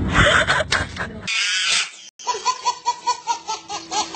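A baby laughing hard in a quick, regular series of short high bursts, about four a second, starting about two seconds in. Before it, a loud jumble of noise with a couple of sharp clicks.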